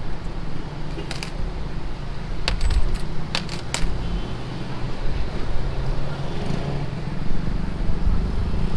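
Jeepney engine and road noise as a steady low rumble, with a cluster of sharp metallic clinks and jingles about one to four seconds in.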